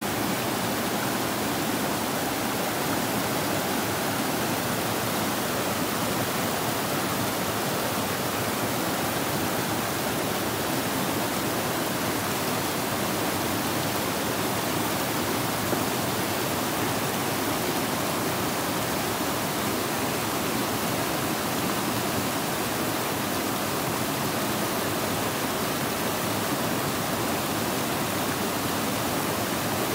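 Rushing water of a fast-flowing stream, a steady, even roar of water.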